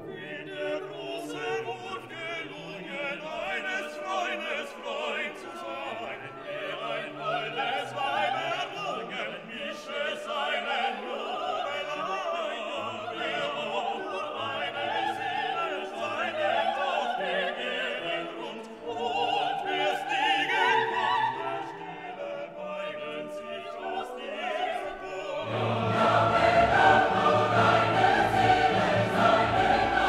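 Background music: classical choral singing with orchestra, growing fuller and louder about 25 seconds in.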